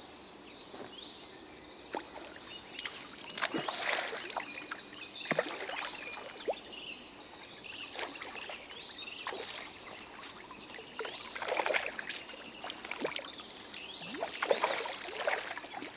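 Water splashing and trickling at irregular intervals, with small birds chirping throughout.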